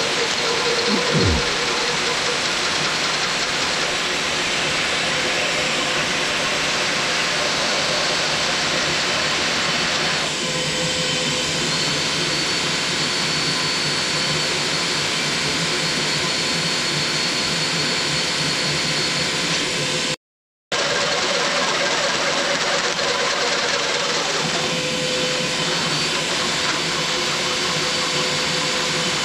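Vacuum cleaner running steadily, sucking cutting chips out through the exhaust port, while a cordless drill spins a valve-shaped fly cutter against a small-block Ford 302 piston to cut valve reliefs. The sound drops out for about half a second roughly twenty seconds in.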